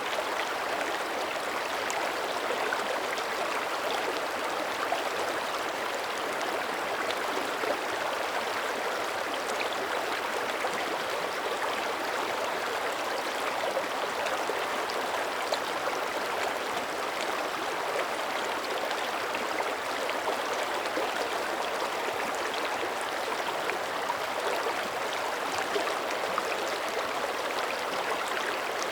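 Small mountain creek running steadily, water babbling and splashing over stones in an even rush with tiny scattered splashes.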